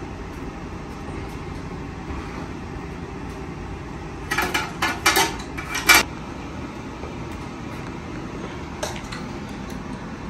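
Metal kitchenware clattering: a quick run of clinks and clanks about four to six seconds in, the last one the loudest, over a steady background hum.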